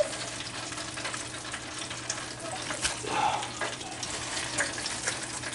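Hot oil bubbling and crackling steadily in a deep fryer, over a steady low hum, with light rustling and clicks as fried fish pieces are moved about on paper towels.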